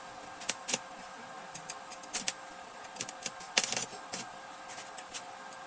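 Irregular sharp clicks and clinks of metal parts and hand tools being handled, in small clusters with the busiest run about three and a half seconds in, over a steady low hum.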